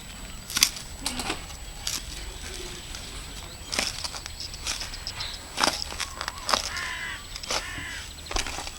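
Irregular sharp knocks and clatter of hand work on a building site, about a dozen strikes spread unevenly. A bird calls once, harshly, about seven seconds in.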